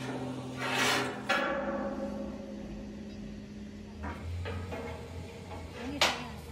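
Steel pipe scraping as it is pushed along the steel cross-members of a truck-body frame, with a metal clank about a second in, over a steady low hum. Near the end a single sharp metallic knock.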